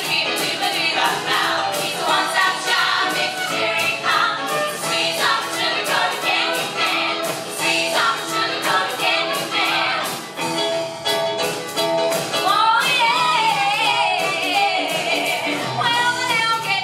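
Female vocal group singing with a live band of drums, electric guitar, bass, keyboard and trumpet, over a steady drum beat. About two-thirds of the way through, a solo voice sings a high, wavering run above the group.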